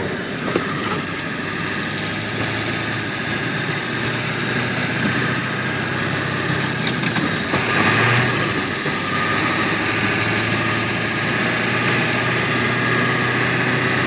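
A 4x4 truck's engine running steadily while driving through deep snow, heard from inside the cab, with a brief louder rush of noise about eight seconds in.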